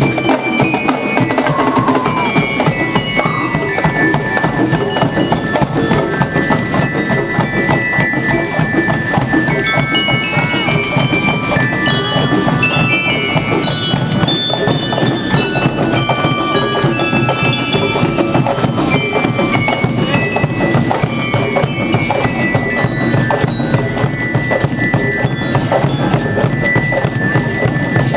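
A marching band of bell lyres and drums playing: a bright, ringing bell-lyre melody over fast, steady drumbeats.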